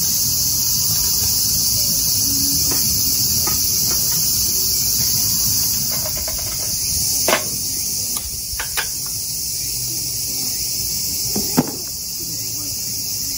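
Loud, steady, high-pitched buzzing of summer cicadas, with a few sharp clicks and knocks about halfway through and again near the end.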